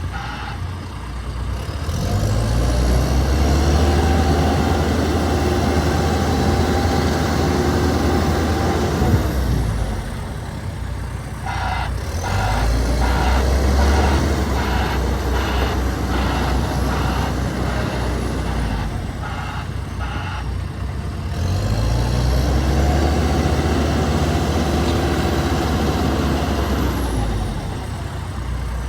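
A 2016 John Deere 310SL backhoe's 101 hp turbo diesel engine revving up, holding high and dropping back to idle three times, with a faint high whine rising and falling along with it. A row of short, evenly spaced beeps or clicks sounds during the second rev.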